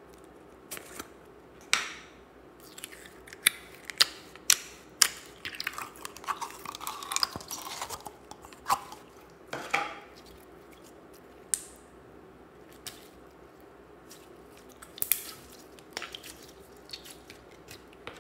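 Slime being handled out of a plastic tub: a series of sharp clicks and pops from the tub and sticky slime, with a stretch of dense crackling and squishing in the middle and scattered squishes after.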